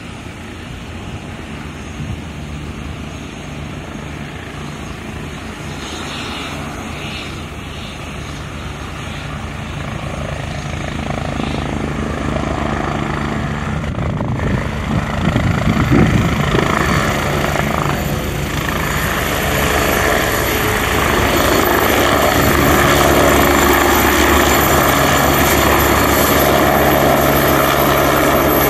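Agusta A109E Power twin-turbine helicopter on approach and coming in to land. Its rotor and turbine sound grows steadily louder as it closes in, swelling briefly about halfway through and staying loud as it nears the pad.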